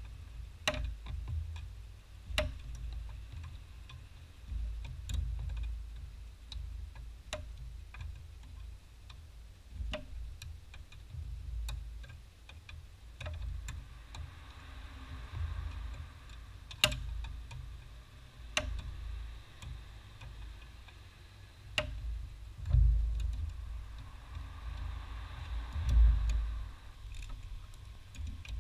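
Scattered sharp metal clicks, irregularly one to two seconds apart, from hand and tool work on the brake line fittings of a brake master cylinder, over a low rumble that swells twice near the end.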